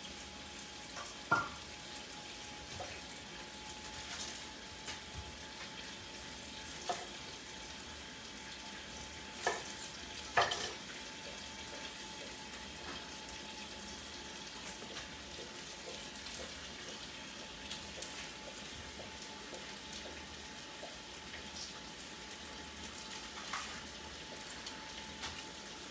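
Ham and sausages frying in a pan, a steady sizzle, with a handful of short sharp knocks of kitchen work, the loudest two about ten seconds in.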